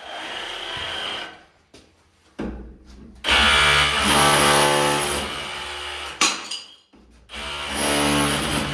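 Electric power tool running in bursts during bathroom demolition. The longest burst runs about three seconds from around the middle, and it starts up again near the end, with a single knock shortly before the first long burst.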